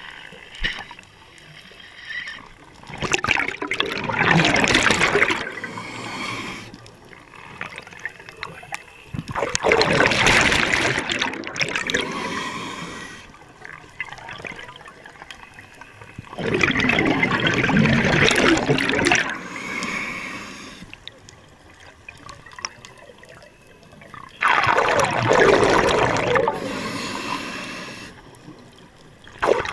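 Scuba diver breathing through a regulator underwater: four loud rushes of exhaled bubbles, about seven seconds apart, with quieter gaps between them.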